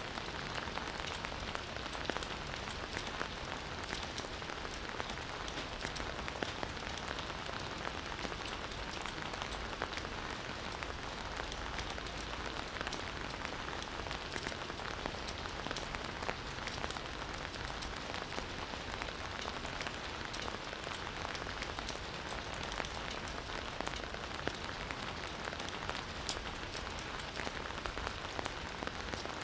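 Campfire burning, a steady hiss of flames with many small crackles and pops of burning wood.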